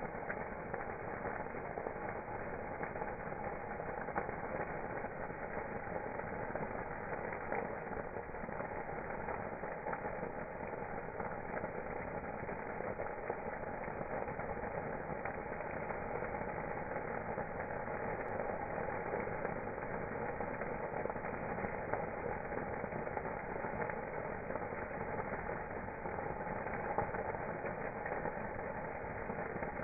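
Campfire burning with a dense, continuous crackle of many small clicks, dull and muffled with no high end.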